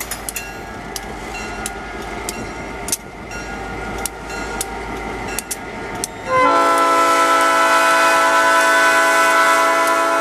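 SD-M diesel locomotive IBCX 814 running past, its wheels clicking over rail joints. A little over six seconds in, its multi-note air horn comes on loud and is held steady.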